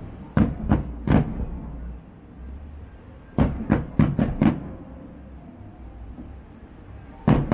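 Aerial fireworks shells bursting as deep booms over a low rumble: three about a second apart at the start, a quick run of five about three and a half seconds in, and another near the end.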